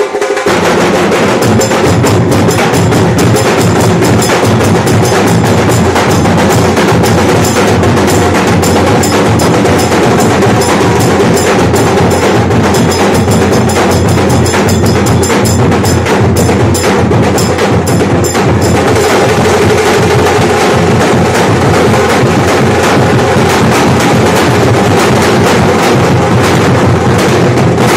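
A Nashik dhol ensemble: several large barrel drums beaten with sticks in a loud, fast, dense rhythm that kicks in right at the start and keeps going without a break.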